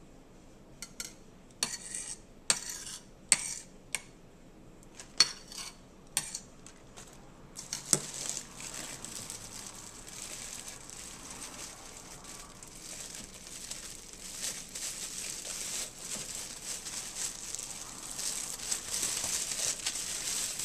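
A handful of sharp clacks of a kitchen knife against a granite cutting board, then from about eight seconds in a continuous crinkling of a clear plastic bag being handled, growing louder near the end.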